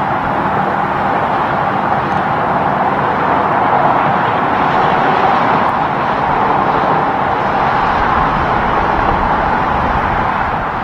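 Steady roar of highway traffic: the tyres and engines of trucks and cars passing, swelling slightly around the middle.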